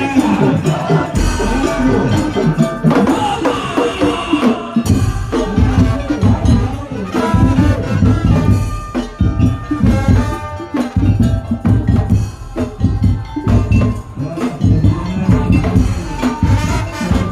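Madurese ul-daul (tong-tong) band playing: drums and bamboo slit drums beat out a steady rhythm with heavy bass under a melody line.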